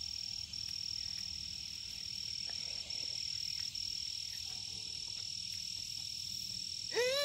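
Steady, high-pitched chorus of insects, one continuous trill with only brief dips. A child's voice starts near the end.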